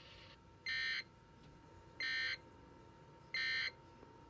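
Sage EAS ENDEC sending its End of Message signal: three short bursts of screechy data tones, each about a third of a second long and spaced about 1.3 seconds apart, marking the end of the relayed alert.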